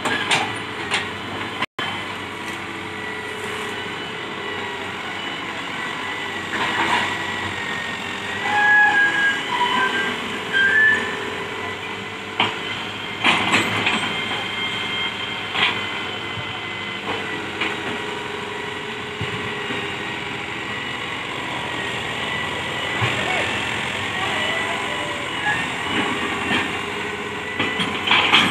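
Old Hitachi UH07 excavator's diesel engine running steadily under working load with its hydraulics, with a few knocks and clanks from the boom and bucket.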